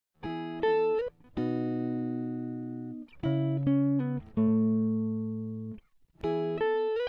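Background music: plucked guitar notes and short phrases that ring and decay, with brief pauses between them.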